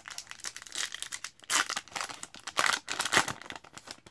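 Foil wrapper of a hockey trading-card pack being torn open and crinkled by hand, in quick irregular crackles, loudest in the middle.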